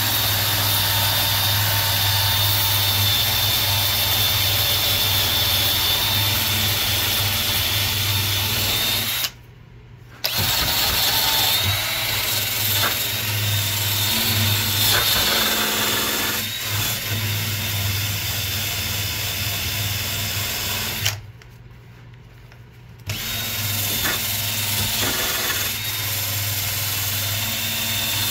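Drill spinning a wire wheel against a parallel clamp's metal bar, scrubbing off dried wood glue: a steady motor whine with the scratch of the wire bristles. The drill stops briefly twice, about nine and twenty-one seconds in.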